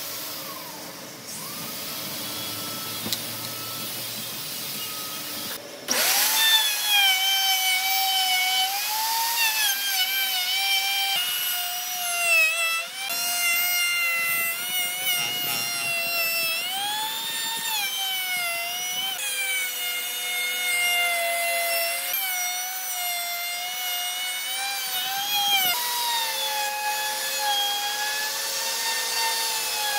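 Electric power tool working wood, its motor whine dipping and recovering in pitch as it is loaded. A softer motor hum runs for the first six seconds or so, then the louder whine cuts in suddenly.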